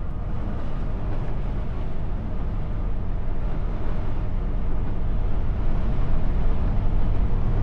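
Steady driving noise of a 1991 Volkswagen Vanagon Syncro heard from inside the van at highway speed into a strong headwind: a low rumble of wind, road and engine that grows slightly louder.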